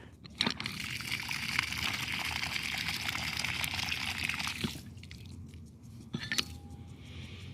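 Lawn sprinkler head spraying water, a steady hiss that runs about four seconds and falls away near the middle, followed by a single click.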